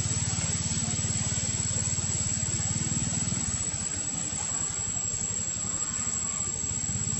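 Steady hiss over a low, fast-pulsing rumble; the rumble drops away about three and a half seconds in.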